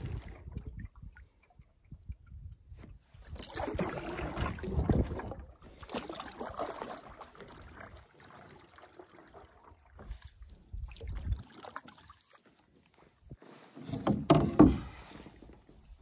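Water sloshing against a canoe in a few uneven swells, with a low rumble of wind on the microphone.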